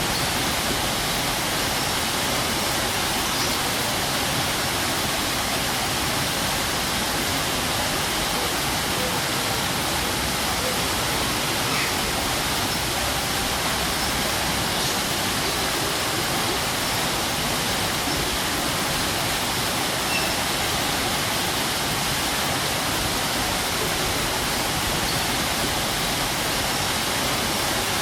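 Strong waterfall: a steady, unbroken rush of falling water, loudest in its hiss.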